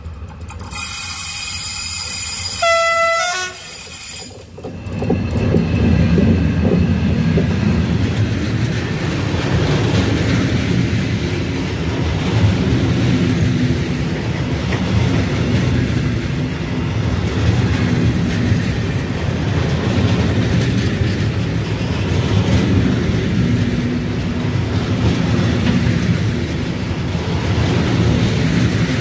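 A short locomotive horn blast about three seconds in, then a freight train rolling past close by: a loud, steady rumble of locomotive and wagons on the rails for the rest of the time.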